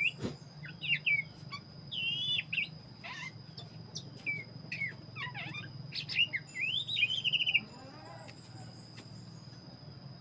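Black-breasted Oriental magpie-robin (kacer dada hitam) singing in full voice: a varied run of short whistled phrases ending in a rapid trill, stopping about seven and a half seconds in. A steady high-pitched tone and a low hum run underneath.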